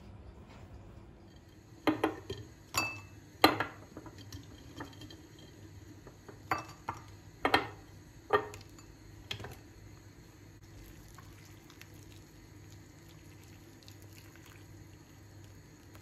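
Crockery clinking and knocking: about a dozen sharp strikes in bursts between about two and nine seconds in, then only a faint steady low hum.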